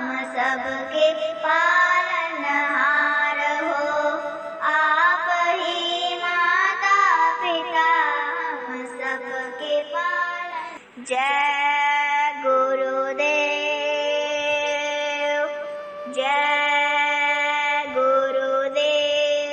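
A young girl singing a Hindi devotional prayer to instrumental accompaniment. About eleven seconds in, the melody turns to long, steadily held notes.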